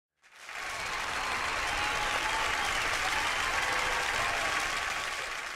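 Audience applause, a dense clapping crowd that swells up almost at once, holds steady and begins to fade near the end.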